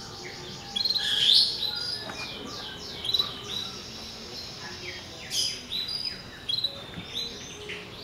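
Canary singing in its cage: several phrases of rapid, repeated high trilled notes, broken by short pauses.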